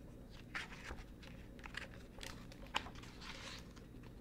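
Pages of a hardcover picture book being handled and turned: faint paper rustles and a few light clicks, the sharpest a little under three seconds in.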